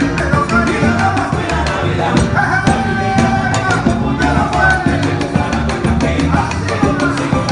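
A live Latin band playing, with a lead singer's voice over congas and other hand percussion keeping a steady rhythm.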